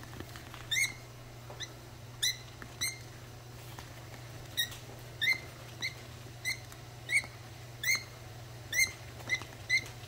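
A budgerigar chick giving short, squeaky cheeps, each rising in pitch, about one or two a second at irregular gaps. It is a chick's begging call during syringe hand-feeding.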